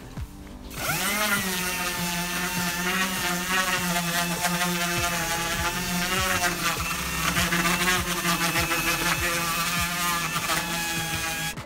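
Orbital sander coming up to speed about a second in, its pitch rising, then running steadily while sanding the wooden side of a dresser. Its pitch wavers up and down as the pad is pressed and moved over the wood.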